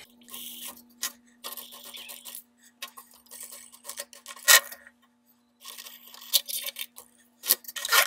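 Hands unscrewing the stock plastic bed-leveling knobs from under an Ender 3 Pro 3D printer's bed: irregular small plastic clicks, taps and rubbing, with a sharper click about halfway through. A faint steady hum runs underneath.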